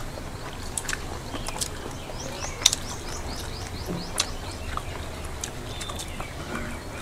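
Close eating sounds from people eating by hand: scattered sharp mouth clicks and chewing. A quick run of about eight small bird chirps comes in about two and a half seconds in.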